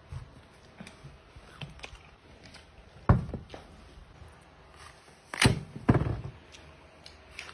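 Handling noise: a few dull thumps and knocks as apples are handled on a plate, the loudest about three seconds in and a close pair around five and a half to six seconds, with smaller clicks between.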